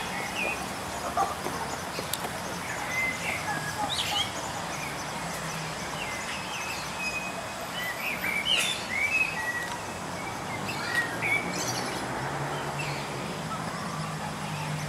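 Birds chirping in short, scattered calls over a steady outdoor hiss, with a low hum joining near the end.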